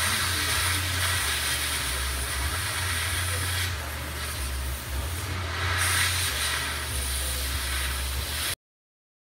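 Stick (SMAW) welding arc, a steady hissing crackle over a low hum, cutting off abruptly near the end.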